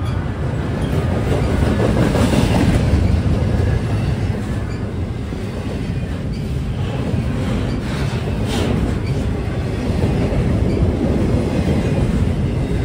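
Double-stack container freight train rolling past close by: a steady heavy rumble of steel wheels on rail, with the cars clattering over the track.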